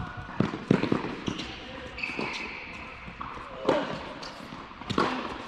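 Tennis rally on a hard court: a string of sharp pops from racket strikes and ball bounces, with a sneaker squeak on the court surface about two seconds in.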